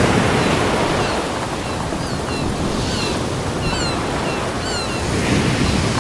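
Ocean surf washing onto a beach, a steady dense rush that swells again about five seconds in. Short, high, falling chirps sound over it several times.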